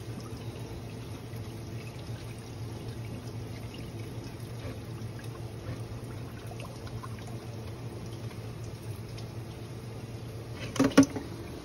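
Tap water trickling into a stainless steel sink where a bowl of cut kangkong is soaking, over a low steady hum. Near the end, a couple of sharp knocks.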